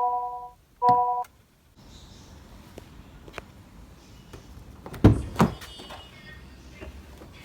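A 2022 Honda City's electronic warning chime, a three-note tone, beeps twice in the first second and a quarter, then stops. A little after five seconds, two heavy thunks half a second apart, typical of a car door being shut, are followed by a few faint clicks.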